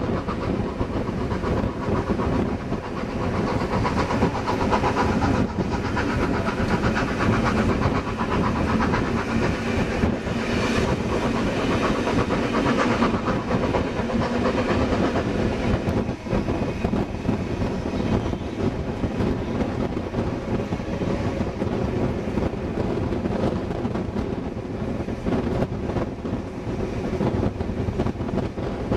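Wooden-bodied passenger carriages of a steam-hauled train running along the track, heard from an open window: a steady rush of wheels on rail and passing air, with scattered clicks over the rail joints.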